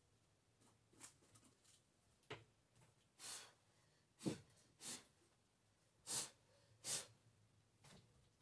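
A person blowing hard in short puffs to clear dust off shelves and balls of yarn, about five breaths in the second half, with a couple of faint knocks before them.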